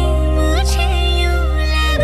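Background music: a sustained low drone under a gliding, ornamented melody, with no speech.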